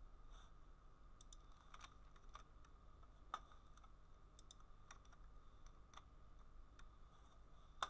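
Near silence: room tone with a low electrical hum and a few faint, scattered computer clicks, one sharper about three seconds in.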